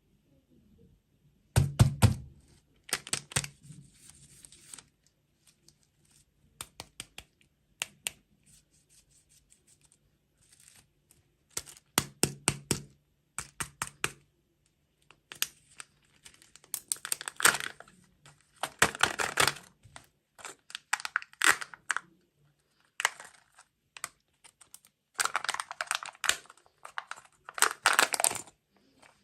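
Close-miked eating and handling of sweets and their packaging: clusters of sharp taps and clicks, then longer bursts of crinkling and crunching, over a faint steady low hum.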